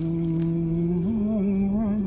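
A voice humming a slow, eerie tune: a long held low note that steps up to a higher, slightly wavering note about a second in.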